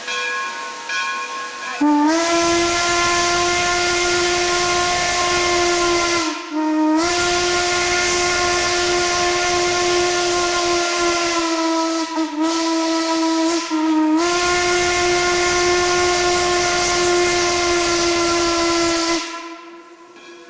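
Newly installed steam whistle on steam locomotive HLC No. 17 blowing the grade-crossing signal: long, long, short, long. Quieter steam hiss comes before the first blast.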